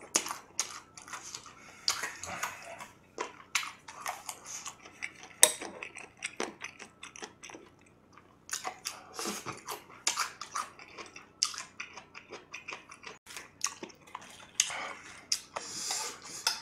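Close-miked chewing and wet mouth sounds of a person eating fried chicken, mixed with light clicks of metal tongs against the plate and bowl.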